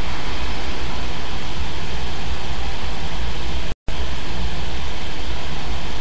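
Steady loud static-like noise, an even hiss over a heavy low rumble, that drops out to silence for a split second just before four seconds in.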